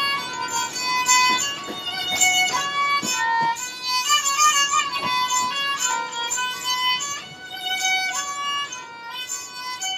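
Sarangi played with the bow, a melody of held notes stepping from pitch to pitch.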